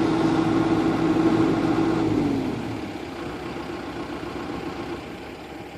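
John Deere 120C excavator's 4.5 L turbocharged four-cylinder diesel running with a steady whine. About two seconds in, the whine sags in pitch and the machine drops to a quieter, steady running.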